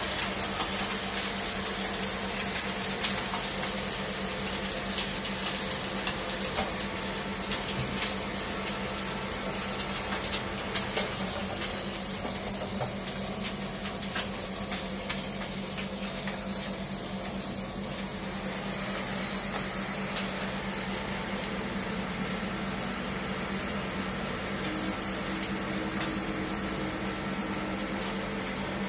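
Meat searing in hot oil in a nonstick frying pan: a steady sizzle, over the steady hum of an induction cooktop.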